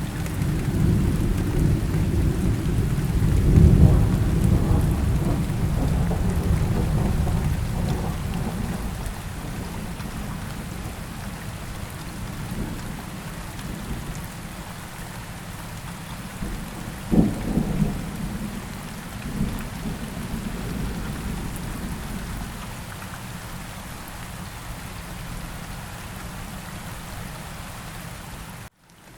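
Steady rain falling, with a long low roll of thunder in the first several seconds and a sharper thunderclap about two-thirds of the way through. The sound cuts out briefly near the end.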